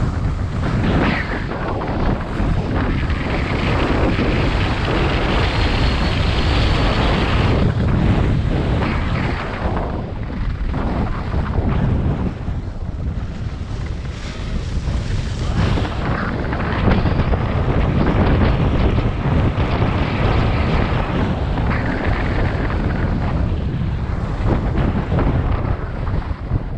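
Wind buffeting the microphone of a GoPro Hero 7 Black moving fast downhill: a continuous low rumble with a higher hiss that swells and fades several times.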